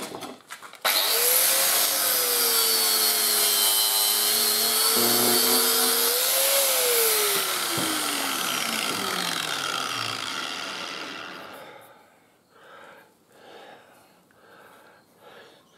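Makita angle grinder with a flap disc starts up about a second in and runs with a steady whine and a hissing grind as it takes rust off a steel chisel. About six seconds in it is switched off and winds down, its whine falling in pitch until it stops, followed by faint handling sounds.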